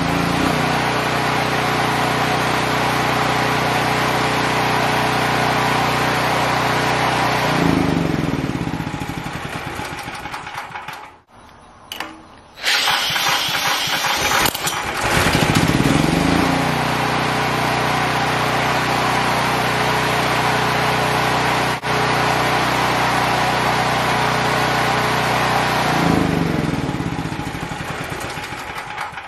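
Portable generator's single-cylinder engine running steadily, then shut off and winding down about eight seconds in. A few seconds later a cordless drill cranks it through a ratchet adapter on the crankshaft nut; it fires, runs steadily again and is shut off and winds down near the end.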